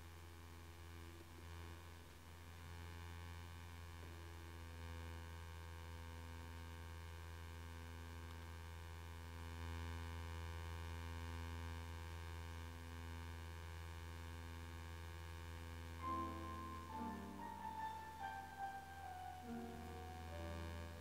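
Soft live music: a quiet held chord sustained for most of the stretch, over a steady low hum. About three-quarters of the way through, a slow descending line of single piano notes steps downward.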